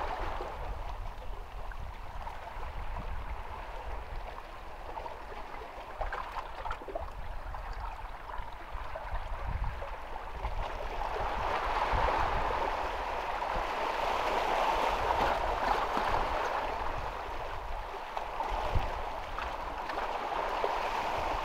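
Calm sea water lapping and gurgling among shoreline rocks, a steady wash that swells louder about halfway through, over a low rumble.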